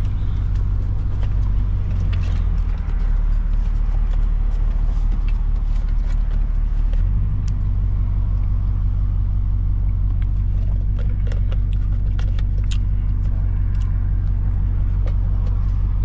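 Jeep Grand Cherokee SRT's V8 running at low speed, heard from inside the cabin as a steady low drone; its note changes about seven seconds in.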